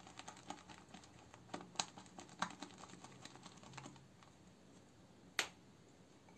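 Semogue 2000 boar-bristle shaving brush working thick lather in a bowl: faint, irregular wet clicks and ticks, thinning out after about four seconds, with one sharper click about five seconds in.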